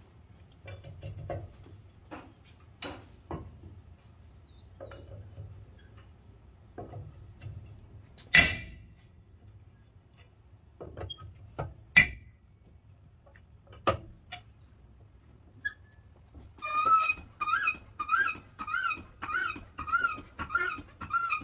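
Scattered metal clicks and knocks from a cross lug wrench and a floor jack being handled, with two loud clanks about 8 and 12 seconds in. Near the end, a hydraulic floor jack is pumped about twice a second, its handle squeaking on every stroke as it raises the car.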